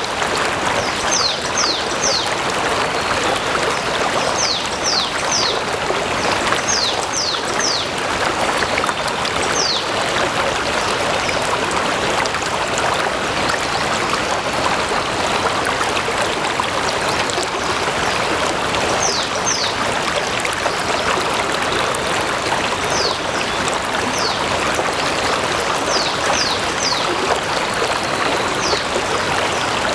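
A stream of running water flowing steadily. Short high falling chirps come in quick runs of two to four, repeated every few seconds.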